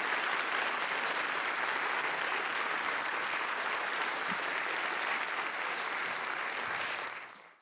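Audience applauding steadily, the clapping fading out near the end.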